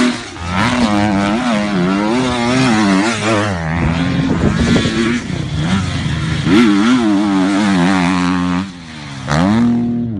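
Motocross dirt bike engine revving hard, its pitch rising and falling over and over with the throttle as the bike is ridden over the jumps. Near the end the engine note drops off briefly, then a fresh rev sweeps up.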